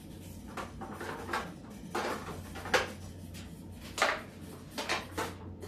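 Sliced onion being put into a cooking dish by hand: a series of light knocks and clatters, about seven, spread out irregularly over a steady low hum.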